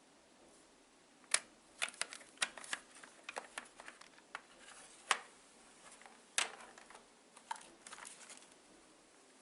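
Scattered light clicks and taps, about a dozen at irregular intervals, with no motor running.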